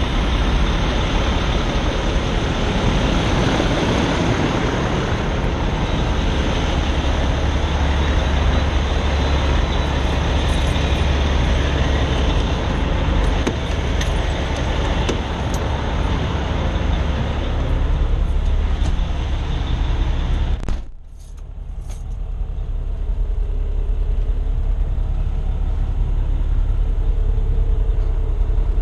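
Steady rumble and hiss of a truck-stop lot full of semi trucks and traffic, with keys jingling and clicking at a semi's cab-door lock. About two-thirds through, the cab door shuts with a few sharp knocks. After that the sound is muffled inside the cab, leaving a lower, duller rumble.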